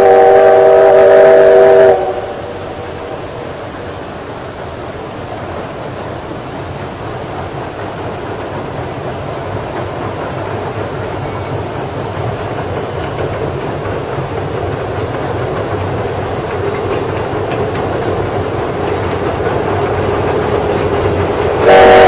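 Steam locomotive (the Oigawa Railway's C56 44) sounding its chime whistle, a chord of several steady notes that cuts off about two seconds in. Then the train rumbles across a steel girder bridge, growing slowly louder, and the whistle starts again at the very end.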